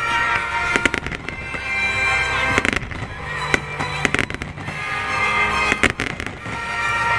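Fireworks exploding and crackling over the sea in clusters of sharp bangs every couple of seconds, with music playing throughout from the show's loudspeakers.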